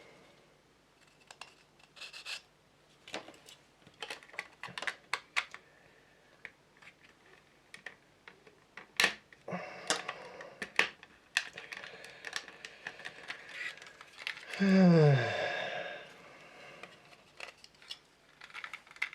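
Small clicks and taps of plastic model-kit parts being handled and pressed together. About 15 s in, one loud falling vocal groan lasting about a second.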